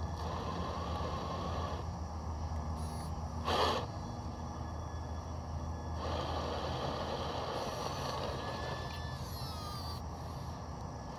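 Traxxas TRX-4 RC crawler winching itself out over rocks: the small electric winch and drivetrain whirr in stretches over a low steady hum. A short loud noise comes about a third of the way in, and a whine falls in pitch near the end.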